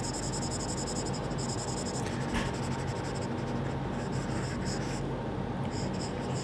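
Stylus scribbling in quick repeated strokes on a tablet's glass screen, colouring in a drawn shape.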